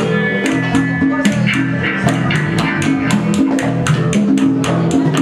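Live rock band playing: guitars and bass over steady, even percussion hits from congas and hand percussion.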